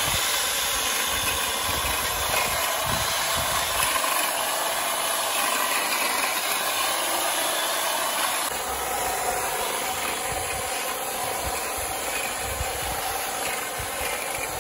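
Corded electric hedge trimmer running steadily, its blades cutting through overgrown vines along a garden wall. The sound eases slightly about halfway through.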